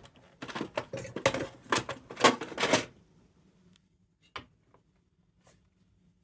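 Quick run of clicks and rustles from small parts being handled, stopping about three seconds in, then a few single clicks.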